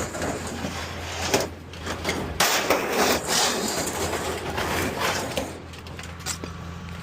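Scrap being shifted and fitted into place on a loaded trailer: knocks and scraping, with a sharp knock about a second in and another before the middle.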